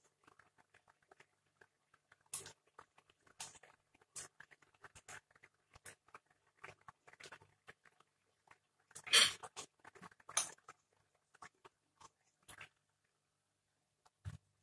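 Scattered soft crackles and rustles of sweet basil leaves being handled and dropped into a pot of curry, with a louder rustle about nine seconds in.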